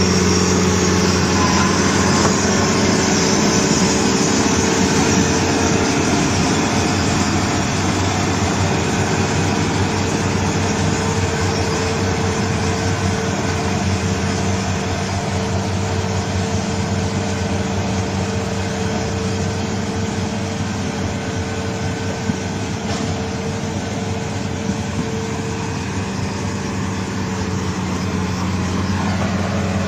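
Heavy mining machine's diesel engine running steadily at a constant pitch, getting slightly quieter through the middle and picking up again near the end.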